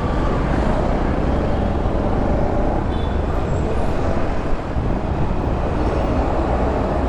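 Steady running noise of a motorbike being ridden through dense city traffic, with the hum of surrounding vehicles.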